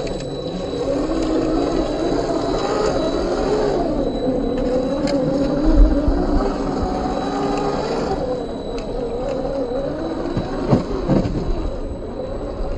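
RC scale crawler's 540-size 27-turn brushed electric motor and geared drivetrain whining as it crawls up rock, the pitch rising and falling with the throttle. A few sharp clicks and knocks from the tyres and chassis on the rock.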